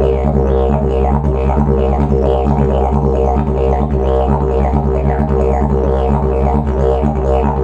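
Slide didgeridoo played as one steady low drone, its upper overtones swept in a repeating mouth-shaped rhythm about twice a second.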